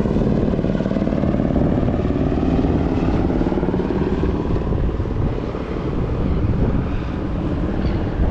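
A steady, loud engine drone that holds level throughout.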